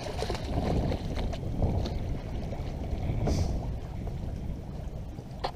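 Wind rumbling on the microphone over the sea sounds of a small boat, with a few light knocks.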